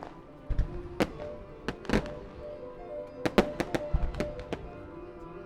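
Aerial fireworks shells bursting in sharp bangs, a quick cluster about three to four and a half seconds in, some with a deep boom, over music played for the show.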